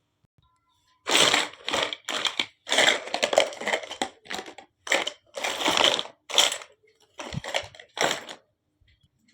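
Packaging for a miniature toy kitchen set being handled and crunched in a run of short, irregular bursts. It starts about a second in and stops shortly before the end.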